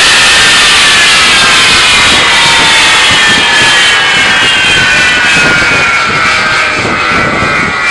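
English Electric Lightning F6's twin Rolls-Royce Avon turbojets running very loudly: a heavy jet roar with a high whine that falls slowly and steadily in pitch, the roar easing a little near the end.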